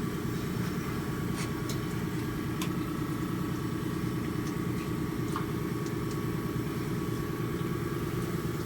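A motor running steadily with an engine-like hum and a faint steady whine, with a few light clicks over it.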